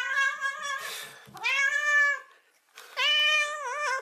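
Black-and-white cat meowing three times in long, drawn-out meows; the third wavers up and down in pitch near its end.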